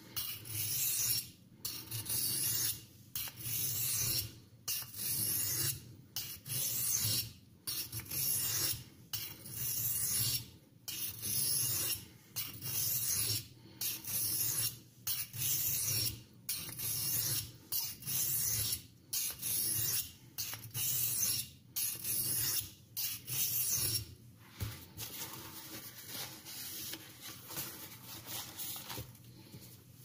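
Pocket-knife blade drawn over an oiled Norton India Fine aluminium-oxide stone in light finishing passes after the edge has been set: a rhythmic scraping hiss, about one stroke every second and a half. The strokes stop a few seconds before the end.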